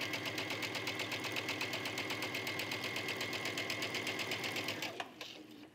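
Domestic sewing machine stitching a seam through layered fabric, running at a rapid, even stitch rhythm, then stopping about five seconds in.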